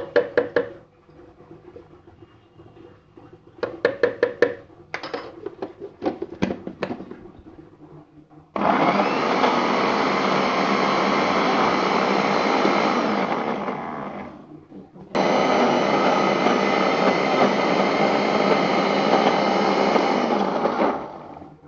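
Electric mixer grinder running in two runs of about five and six seconds, with a short stop between them, as it grinds cooked brinjal and green chilli chutney. It is preceded by scattered clicks and knocks.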